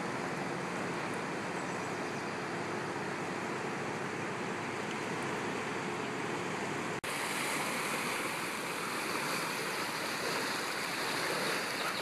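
Floodwater of the Clark Fork River in spring high water rushing past, a steady churning wash. About seven seconds in the sound breaks for an instant and comes back brighter and hissier, with rapids churning closer by.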